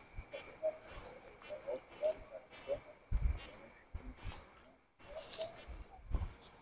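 Night insects chirping in a steady repeated rhythm of high pulses, about two a second, with dull footsteps and rustling of grass as people pick their way down a steep dirt path.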